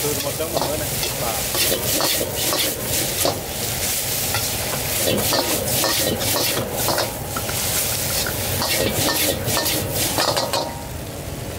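Noodles being stir-fried in a metal wok: a metal spatula scrapes and clanks against the wok in quick repeated strokes over steady sizzling. The scraping stops about a second before the end, leaving the sizzle.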